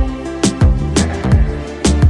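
Music with a steady drum beat: deep kick drums dropping in pitch, sharp high percussion and sustained melodic tones.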